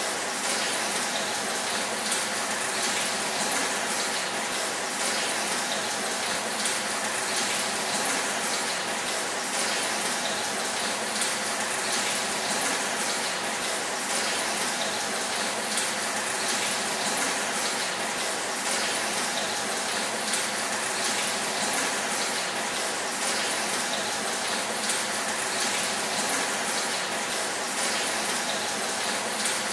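Water pumped through pipes falling onto a roof of corrugated metal sheets and wood, a steady dense patter like heavy rain on a metal roof.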